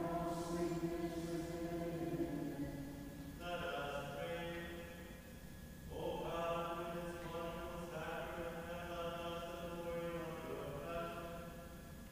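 Slow singing in long held phrases, like sung chant, breaking off briefly about three and a half seconds in, again around six seconds, and just before the end.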